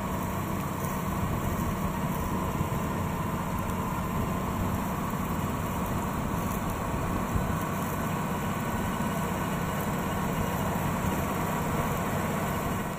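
Steyr CVT 6240 tractor's six-cylinder diesel engine running steadily while pulling soil-working implements through the field.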